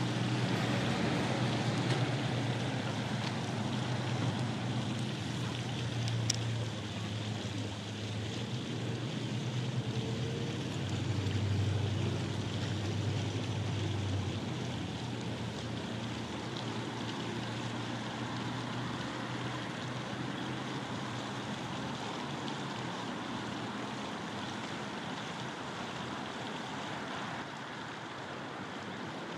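Steady rushing outdoor noise with a low rumble underneath. The rumble is strongest for the first fourteen seconds and then dies away, and there is a single sharp click about six seconds in.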